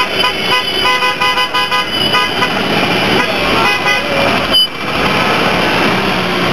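Road traffic noise with vehicle horns honking in a string of short blasts during the first couple of seconds, and a few more about four seconds in.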